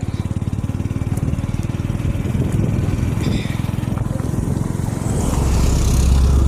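A motor vehicle engine running close by with a fast, even pulse, getting louder and deeper about five seconds in.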